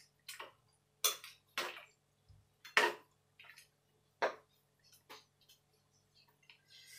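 Metal spoon clinking and scraping against a metal frying pan while stirring a simmering soup: about half a dozen separate knocks at uneven intervals, the loudest near the middle.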